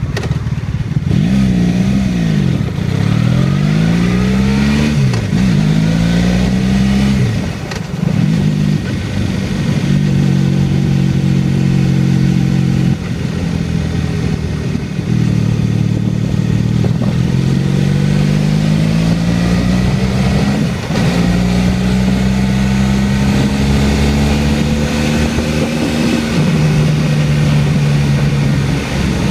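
Motorcycle engine pulling away from low revs and accelerating through the gears. Its pitch rises in each gear and falls back at each of several gear changes, with a brief drop in level around a shift about eight seconds in.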